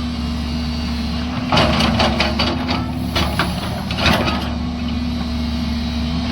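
A JCB excavator's diesel engine running steadily, with bursts of clattering and scraping about a second and a half in, again around three seconds, and around four seconds.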